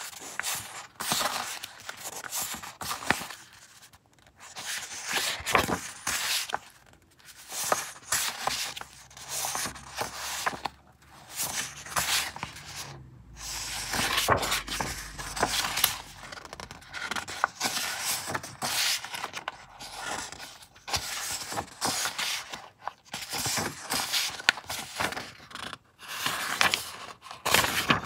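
Paper postcards and printed sheets handled one after another: rustling, sliding and flapping in irregular bursts, with crisp crinkles and small taps as each sheet is lifted and laid on the pile.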